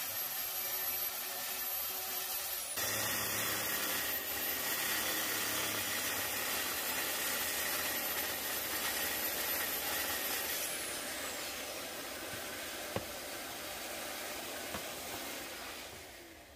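DeWalt plunge track saw running along its guide rail, cutting through an MDF sheet with a dust extractor hose attached to the saw. The cutting noise is steady with a faint high whine over it, a single click comes about thirteen seconds in, and it fades away near the end.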